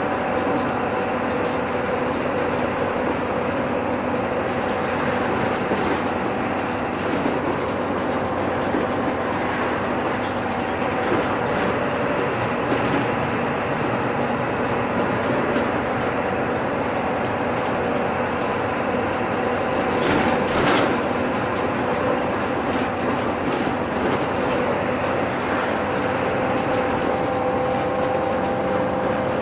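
Inside a city bus on the move: the steady drone of its engine and drivetrain with road noise, carrying a steady whine. A brief sharp rattle or knock comes about twenty seconds in.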